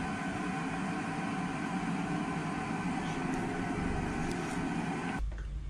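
Steady machine hum made of several even tones, cutting off abruptly about five seconds in.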